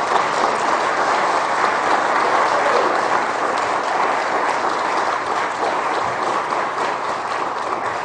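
Audience applauding steadily, a dense crowd of hand claps.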